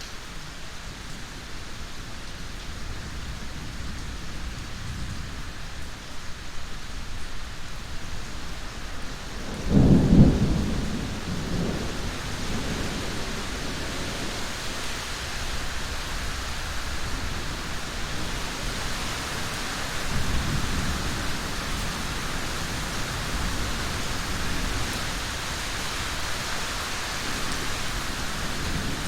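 Steady rain falling, with a loud low clap of thunder about ten seconds in that rumbles away over a couple of seconds, and a softer rumble of thunder about twenty seconds in.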